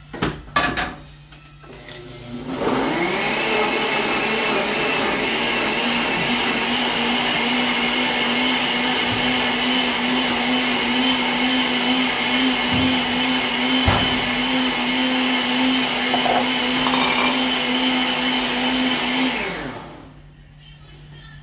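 Countertop blender puréeing green salsa ingredients (tomatillos, garlic and onion with a little water and salt). After a couple of knocks as the jar goes onto the base, the motor spins up about two and a half seconds in, rising in pitch. It runs at a steady hum with a loud whirr for about seventeen seconds and winds down near the end.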